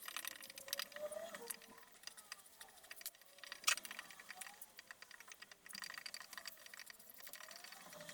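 Rapid, irregular light clicking and tapping of small hard objects, with one sharper click about three and a half seconds in.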